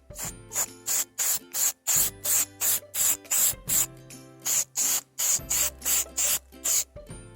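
A pad rubbed quickly back and forth across a plastic headlight lens, about three hissing strokes a second, with a brief pause just past the middle. This is the application of the clear coat.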